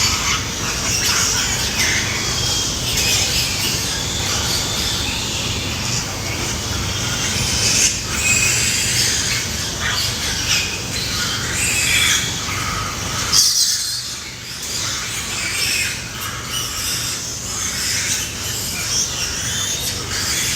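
Pigs squealing continuously in a pen, many shrill cries overlapping, with a brief lull about thirteen seconds in.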